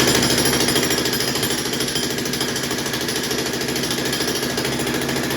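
Jackhammer breaking up a concrete floor, hammering rapidly and steadily without a pause.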